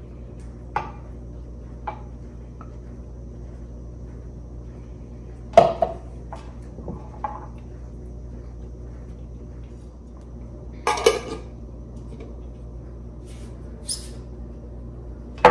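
Scattered clinks and knocks of kitchen glassware: a wooden stick scraping and tapping pesto out of a blender cup into a small glass jar, and containers set down on the stone countertop, with two louder knocks about five and a half and eleven seconds in, over a steady low hum.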